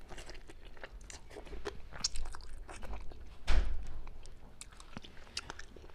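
Close-miked chewing and biting of spicy braised Chinese forest frog, with many wet mouth clicks and a louder slurp about three and a half seconds in.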